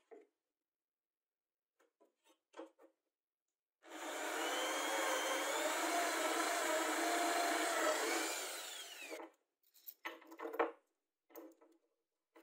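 Electric drill boring a hole through plywood with a twist bit, running about five seconds with a wavering motor whine, then winding down with a falling pitch. A few faint scrapes and light clicks come before and after it.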